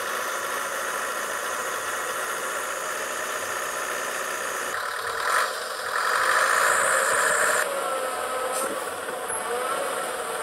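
Roadside traffic noise from motorcycle engines passing on the road. It swells louder for a couple of seconds just past the middle.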